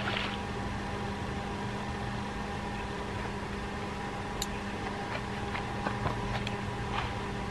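Steady mechanical hum, with a few short sharp clicks from about four seconds in as a fishing reel is handled.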